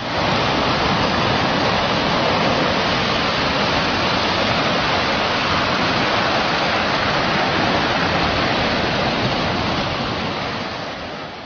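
Steady, even rushing noise with no tune or rhythm, the sound bed of an animated logo intro, fading out near the end.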